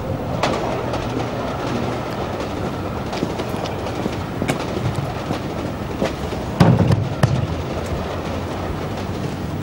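A steady low rumble with scattered clicks and clatters, and a louder clatter about two-thirds of the way through.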